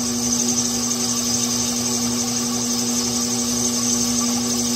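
Lathe-mill running steadily with a constant hum while its cutting tool shaves fine fluffy strands off a spinning ABS plastic pipe, with a hiss over the hum.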